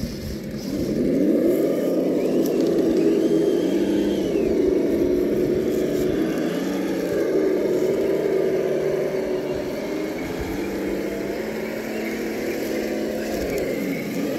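Traxxas TRX-4 High Trail RC crawler's electric motor and geared drivetrain whining as it crawls over rocks, the pitch rising and falling over and over with the throttle.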